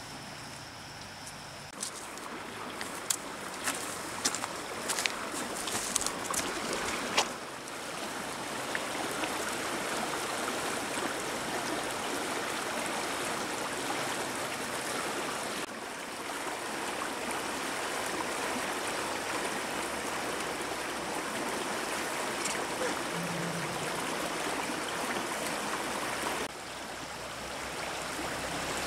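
Steady rushing of a flowing river. Between about two and seven seconds in, a run of sharp snaps and cracks stands out over it.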